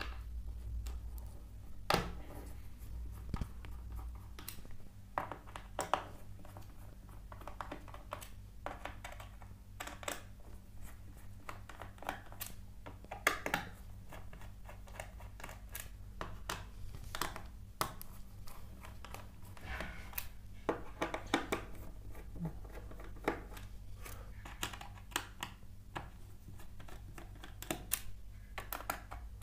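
Small screwdriver loosening the screws of a Dell E7470 laptop's bottom cover: scattered faint clicks and scrapes of the tool in the screw heads and against the plastic case, over a steady low hum.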